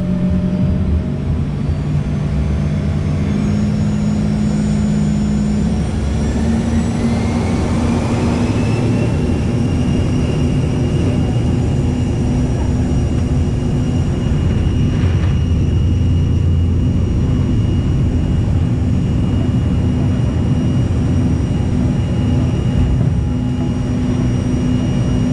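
Embraer ERJ-135's rear-mounted Rolls-Royce AE 3007 turbofan heard from the cabin seat beside it, spooling up to takeoff thrust: a whine rises in pitch about six to nine seconds in, then holds steady under a constant loud roar through the takeoff roll and climb-out.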